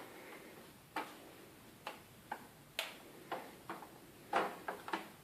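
Sharp plastic clicks and taps, about ten at uneven intervals with a cluster of louder ones near the end, as a RAM module or cover is pressed and worked into place in a laptop.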